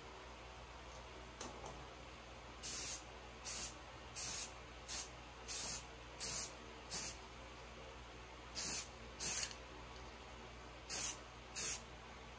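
Aerosol rattle can of camo spray paint hissing in short bursts. There are about eleven quick puffs, each under half a second, in clusters with pauses between: light passes that dust a highlight coat on rather than flooding the surface.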